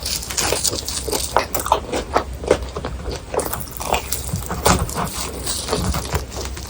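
Close-miked chewing of crispy fried food, a quick, irregular run of crackling crunches.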